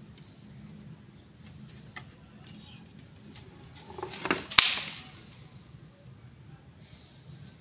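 A pole clatters down onto a bamboo-slat platform about four and a half seconds in: a rattle with one sharp clack. Faint light taps come before it, and a bird chirps briefly near the end.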